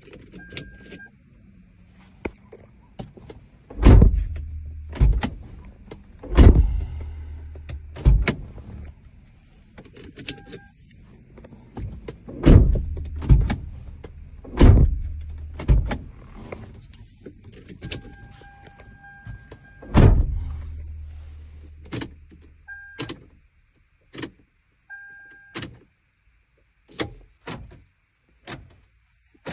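A series of sharp car-door and lock thunks with a low hum under them, broken by short two-tone electronic beeps, while a replacement key is programmed into a 2002 Lexus ES 300 and the stolen key is erased.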